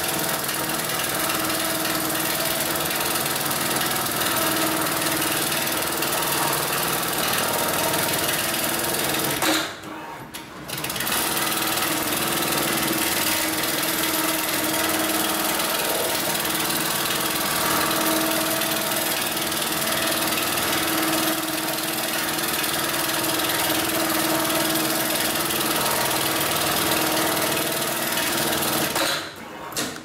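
HighTex MLK600 programmable bar-tacking sewing machine running its automatic sewing cycle, stitching a box W pattern through heavy strap webbing with a steady, rapid mechanical clatter. It stops briefly about ten seconds in, then runs on until just before the end.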